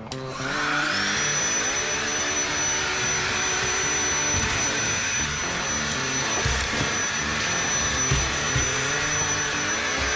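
DeWalt DCV501HB 20V cordless handheld vacuum switching on, its motor whine rising to a steady high pitch within about a second and then running steadily. Guitar background music plays underneath.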